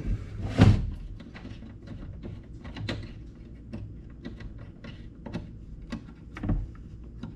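A hand wrench working a bolt on a snowmobile ski: a string of short, irregular metal clicks and ticks as the tool is turned and repositioned, with a louder knock about half a second in and another near the end.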